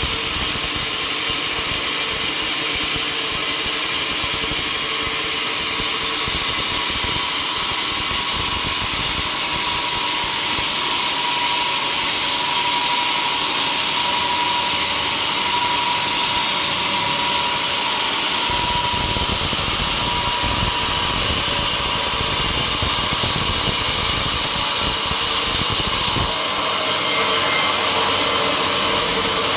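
Sawmill saw running steadily as it cuts through wood, with a deeper rumble joining for several seconds past the middle.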